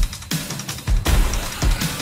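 Backing music with a heavy, steady drum beat.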